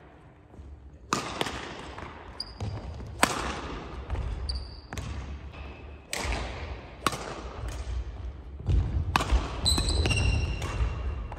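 Badminton rally in a large hall: sharp racket strikes on the shuttlecock every second or two, each with a reverberant tail, along with quick footfalls and short high shoe squeaks on the wooden court floor.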